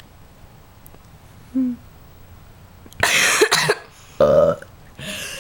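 A girl coughing and straining her throat while trying to force a burp: a harsh cough-like gust about three seconds in, a short low croak, then another gust near the end.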